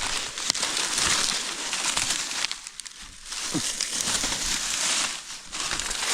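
Dry, harvested maize leaves and stalks crunching and rustling in uneven bursts, with a dip about halfway through.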